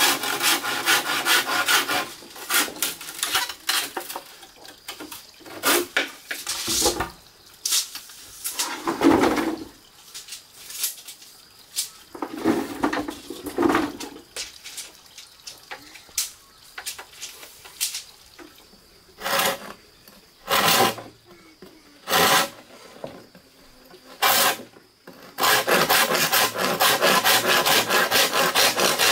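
Quick repeated rasping strokes, in a run at the start and again from about 25 seconds in, with separate scrapes and knocks in between.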